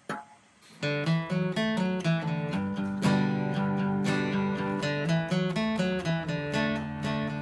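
A brief knock, then acoustic guitar music, strummed and picked, starting about a second in.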